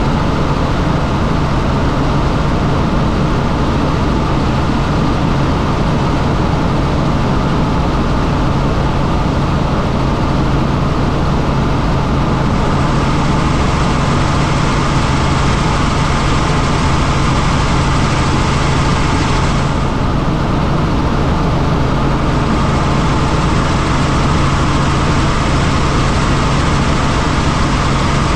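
Helicopter in flight: a steady, loud drone of rotor and engine with a strong low hum. A brighter hiss grows about twelve seconds in and dips briefly about two-thirds of the way through.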